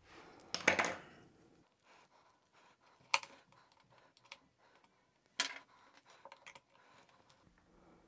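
A few light, sharp clicks and taps of a small metal box latch being handled and set against the side of a wooden box, about half a second, three seconds and five and a half seconds in, with quiet between.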